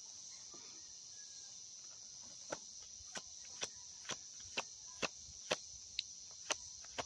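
Tarot cards shuffled by hand: from a few seconds in, sharp card slaps come about twice a second. Under them is a steady, high-pitched insect chorus.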